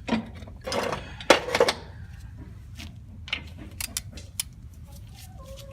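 Hand ratchet clicking and metal tools clinking while small fasteners are snugged down by hand. The sharpest clicks come about a second and a half in, followed by scattered light ticks.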